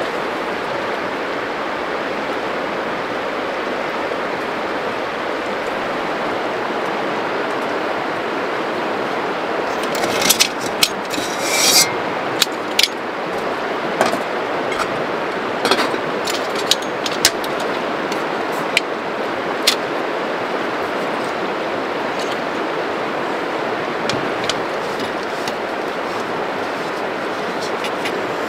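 Steady rushing of flowing river water. From about ten seconds in, a scatter of light clicks, small knocks and rubbing comes on top of it as camping gear is handled: a gas stove and a gas canister in a knitted cover are set out.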